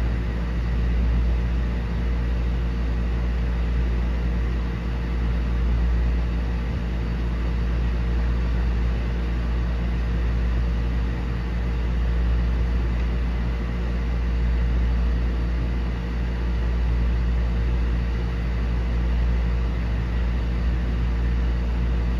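Aquarium canister filter running, drawing surface water through an ISTA multi-surface skimmer: a steady low hum with a constant rushing noise.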